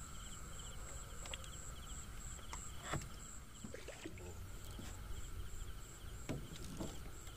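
A night chorus of crickets and other insects, trilling in steady, evenly pulsing notes, with a few soft knocks scattered through.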